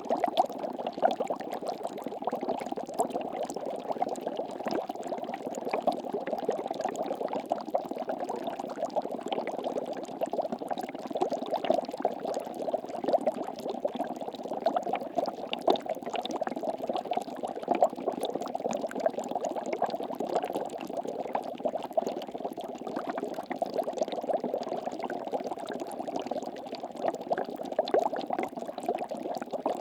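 Water bubbling in fast, dense bursts: a continuous stream of small bubble pops that keeps up at an even level without a pause.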